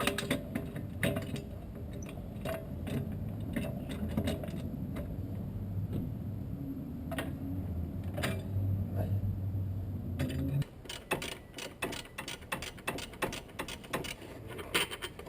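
Metal hand-tool work in an engine bay: scattered metallic clicks over a steady low hum, then, about two-thirds of the way through, the hum stops and a quick run of ratchet wrench clicks follows.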